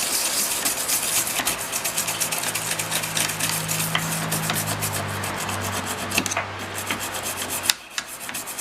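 Toothbrush scrubbing a circuit board wet with isopropyl alcohol, in quick back-and-forth strokes, to clean off old flux residue. The scrubbing pauses briefly near the end.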